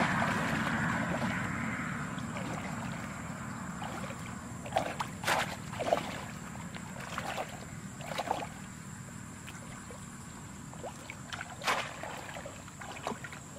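Shallow water splashing and sloshing as a woven conical plunge-basket fish trap is thrust down into it and a person wades. The sound starts as a loud splashy wash that dies away, and a string of short sharp splashes follows from about the middle onward.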